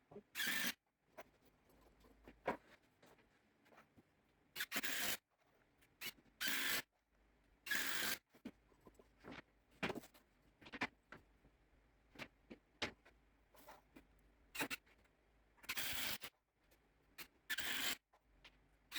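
A series of short, irregular scrapes, each under half a second and a second or more apart, with a few light knocks between them.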